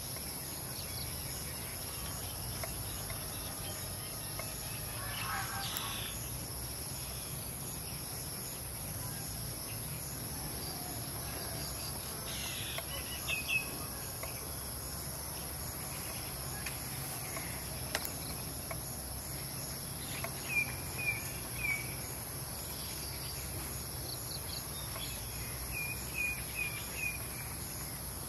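A steady, high-pitched insect drone, typical of crickets, with a bird chirping now and then in short runs of three or four quick notes.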